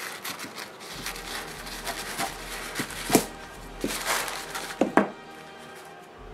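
A thin paper napkin rustling and crinkling as it is cut with scissors and handled, with several sharp crackles and taps between about three and five seconds in.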